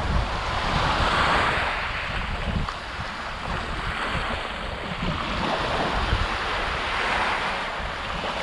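Small waves breaking and washing over a pebble beach, the wash swelling and fading twice, with wind buffeting the microphone underneath.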